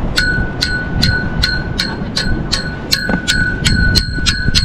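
A metal pole struck over and over, each hit ringing with a clear bell-like tone, about three strikes a second and quickening near the end.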